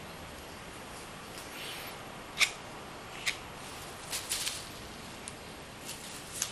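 Scattered sharp clicks and a few short scrapes from a palette knife working acrylic paint off-screen: the loudest click comes about two and a half seconds in, then a quick cluster of clicks about four seconds in.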